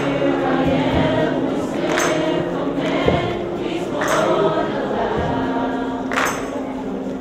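A choir singing, holding long sustained notes, with a sharp accent about every two seconds.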